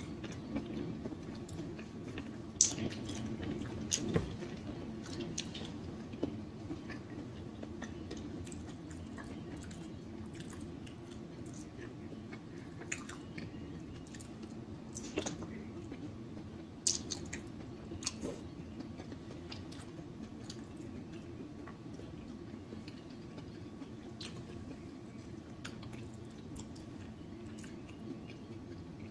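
A person chewing food close to the microphone, wet mouth sounds with scattered sharp smacks, a few louder ones among them.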